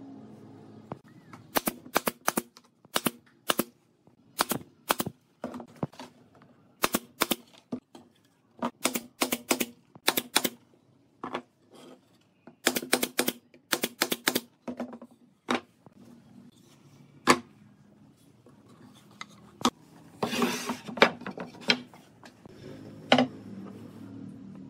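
A nail gun fires into the corner joints of a pine frame: sharp shots in quick clusters of two to four, spread over about fifteen seconds. Later comes a brief rattling scrape of wood on the bench and a single knock.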